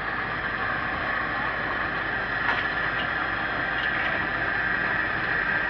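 GQ50 rebar cutting machine running steadily, a constant mechanical whine and hum with a few faint clicks.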